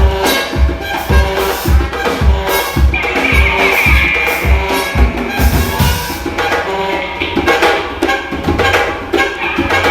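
Batucada samba percussion ensemble playing, with steady deep drum beats under dense clattering percussion. A high held tone sounds for about two seconds, starting about three seconds in.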